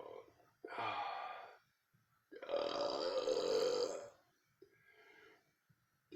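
A person burping repeatedly: a burp about half a second in, a longer, louder burp lasting nearly two seconds in the middle, and a faint short one near the end.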